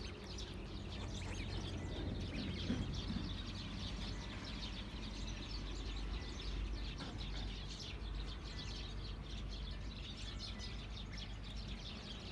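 Small birds chirping and twittering continuously, many short calls overlapping, over a steady low outdoor rumble.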